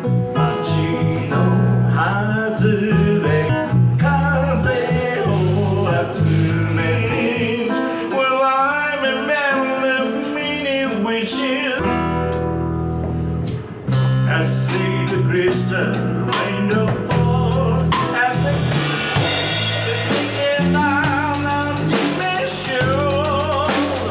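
A small live band playing a song: a man singing over strummed acoustic guitar, electric bass and drum kit, with a brief break in the music about fourteen seconds in.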